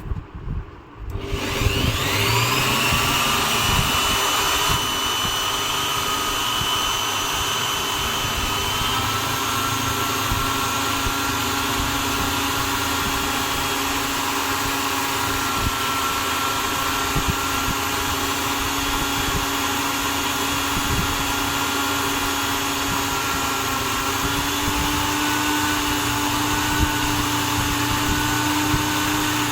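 Electric drill motor spinning up about a second in, then running steadily with a whine that shifts slightly in pitch now and then.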